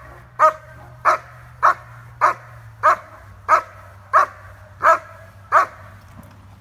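German Shepherd giving a steady run of loud, evenly spaced barks, about one every two-thirds of a second, nine in all, stopping shortly before the end. This is the bark-and-hold: the dog sits facing the helper with the bite sleeve and barks at him to hold him.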